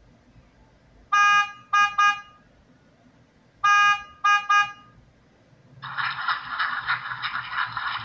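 A horn honking in a set pattern, one long toot then two short ones, repeated twice about two and a half seconds apart. About two seconds before the end a steady harsh noise starts and continues.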